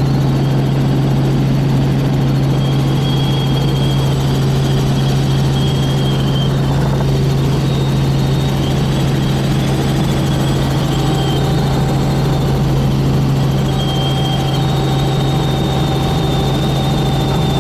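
Helicopter running steadily: a constant loud drone with a strong low hum and faint steady whines above it.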